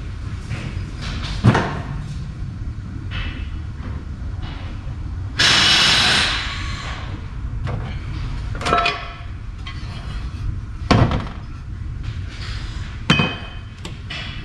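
Metal transfer case parts being handled and set down on a metal workbench, giving a few sharp clanks and knocks, with a short spray-like hiss about five seconds in.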